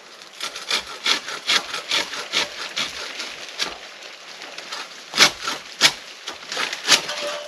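Crosscut saw cutting into a tree with quick rasping back-and-forth strokes, about two or three a second, then a short lull and a few louder, sharper strokes near the end.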